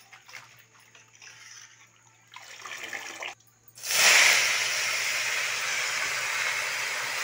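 Wet, freshly washed mustard greens going into hot oil in a kadhai: about four seconds in a sudden loud burst of sizzling starts and settles into a steady sizzle. Before it, only faint handling sounds.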